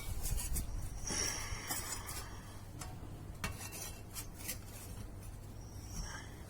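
Metal parts and tools clinking and scraping, handled by hand while an opened hermetic refrigerator compressor is taken apart: scattered light clinks, with a longer scrape about a second in.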